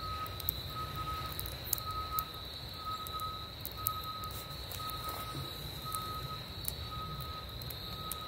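Reversing alarm on a work vehicle beeping steadily, one short beep about every second, over a continuous high-pitched tone and a low rumble.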